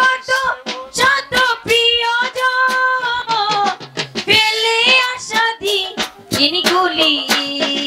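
A woman singing a Bengali jatra song, holding long, wavering notes, over live instrumental accompaniment with regular percussion strokes.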